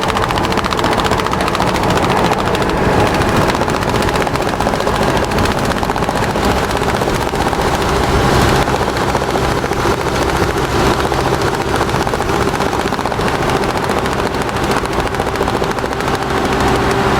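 A small motor and its gears running steadily with a fast, even rattle and a steady hum.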